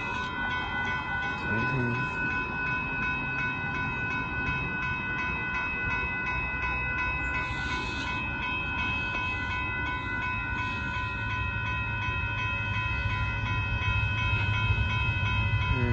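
Railroad grade-crossing bell ringing in a quick, steady, repeating rhythm while the crossing gates come down. A low rumble from the approaching freight train grows louder near the end.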